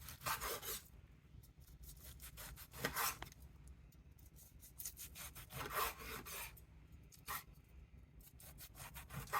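A knife sawing through smoked tri-tip on a cutting board: faint rasping strokes in short bursts every second or two, with small clicks of the blade against the board between.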